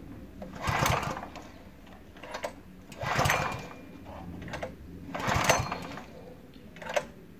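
Recoil starter cord of a Ruris 732K petrol tiller pulled three times, about two seconds apart, each pull a short whirring rasp as the engine turns over without firing. These are dry pulls with the ignition off, to let the engine draw oil before a cold start.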